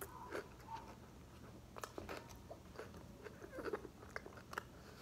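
Faint chewing with scattered soft crunches and mouth clicks as a person eats a pita-bread wrap with celery inside.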